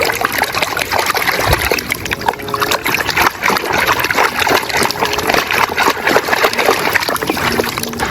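Running water splashing steadily over a mud-caked toy as it is rinsed clean.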